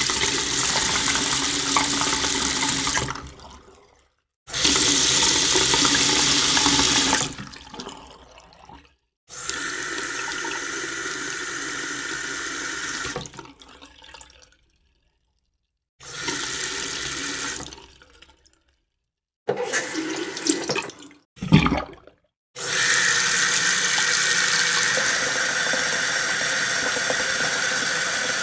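Tap water running into a sink, heard as a string of separate takes of a few seconds each with sudden cuts and short silences between. Around twenty seconds in there is a brief uneven splashy stretch with a low thump, and the last run is the longest.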